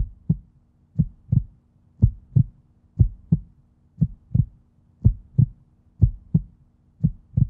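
Heartbeat sound effect: steady low thumps in lub-dub pairs, about one pair a second.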